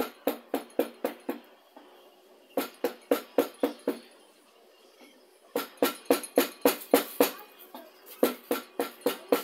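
Mallet striking a carving chisel into wood in quick runs of blows, about four a second, with short pauses between runs.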